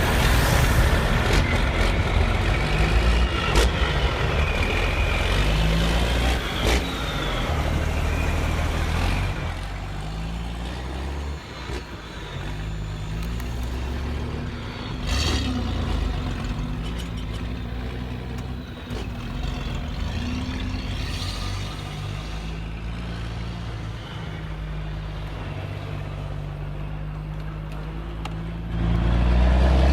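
Truck engine sounds from a convoy of RC model trucks, the engine note stepping up and down as they drive, with a short hiss about halfway through.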